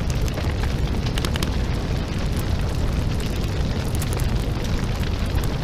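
House fire burning: a steady deep rumble with scattered crackles and pops.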